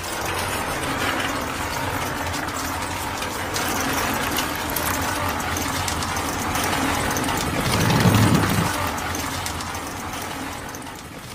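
Small electric motor of a homemade miniature concrete mixer running and turning its drum, a steady mechanical whir with a rattle of clicks. It swells about eight seconds in and fades near the end.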